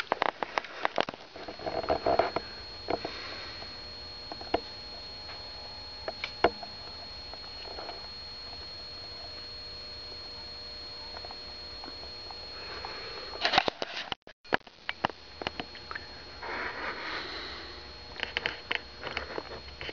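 Breathing and sniffing close to the microphone, with scattered clicks from the handheld camera being moved. A faint steady high whine runs underneath and breaks off briefly about two-thirds of the way through.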